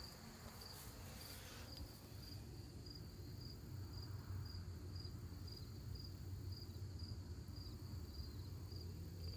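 An insect chirping steadily outdoors: short, high chirps repeating evenly about twice a second, over a low steady rumble.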